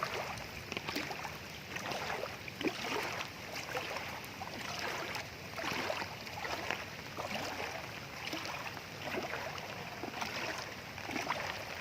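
Legs wading through knee-deep floodwater, sloshing and splashing with each step at an unhurried walking pace.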